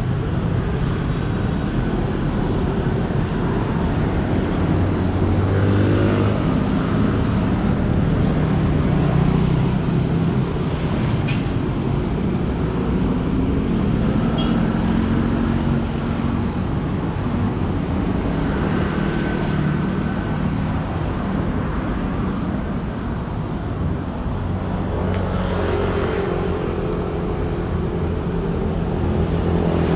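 City road traffic: vehicle engines running and passing without a break, their hum rising and falling as vehicles come and go.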